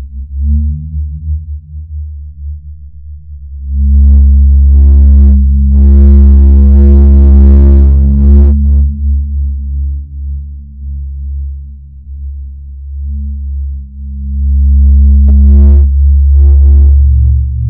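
Loud, deep electronic drone of steady low tones. Brighter layered tones swell in about four seconds in and again near the end.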